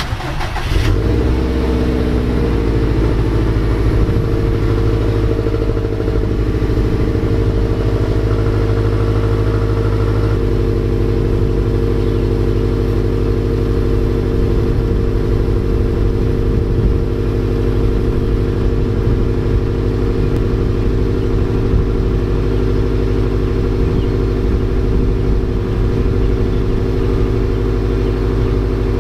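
2018 Subaru WRX STI's turbocharged 2.5-litre EJ257 boxer four starting from cold through its stock quad-tip exhaust: it cranks and catches in the first second, then runs at a steady, loud cold-start high idle. The idle note shifts slightly about ten seconds in.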